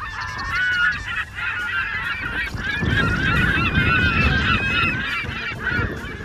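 A flock of birds calling over one another, a dense stream of short honking calls throughout. A low rumble joins in about three seconds in and fades near the end.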